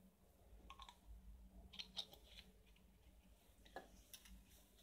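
Near silence: room tone with a few faint, short clicks and taps, the clearest about two seconds in.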